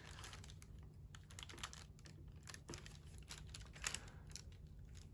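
Faint, scattered light clicks and taps of hands handling a stiffened felt craft hat and the long pins stuck through it; the loudest click comes about four seconds in.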